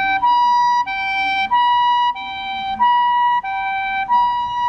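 Two-tone ambulance siren, switching between a high and a low tone about every 0.6 seconds.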